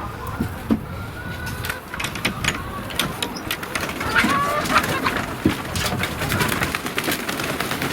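A flock of chickens clucking and calling, with a busy patter of sharp clicks and scuffs that grows busier about two seconds in.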